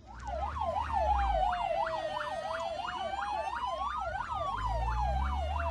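Emergency vehicle sirens sounding together: one fast up-and-down warble about three times a second over a slow wail that rises to a peak about four seconds in and falls away, with a low vehicle rumble underneath.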